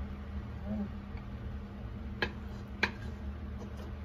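A wooden spatula knocks twice on the cookware while sauce-coated chicken feet are served out, two sharp clicks about half a second apart over a steady low hum.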